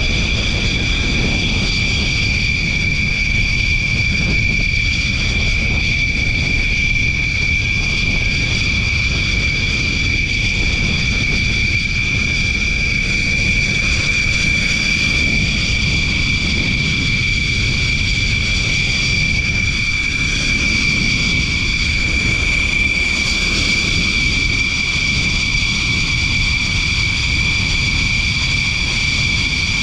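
Jet engines of fighter aircraft on deck running at idle: a steady high turbine whine with a low rumble beneath, unchanging throughout.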